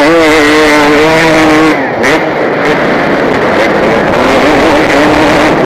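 KTM 250 motocross bike engine under hard throttle, heard from the rider's helmet: the revs climb at the start, hold high for about a second and a half, drop back near two seconds in, then run lower before climbing again near the end.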